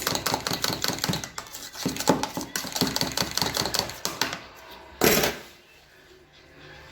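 Seasoning mixture whisked fast in a bowl, the way eggs are beaten: a quick run of light clicks of the utensil against the bowl that stops about four seconds in. A short loud rush of noise comes about a second later.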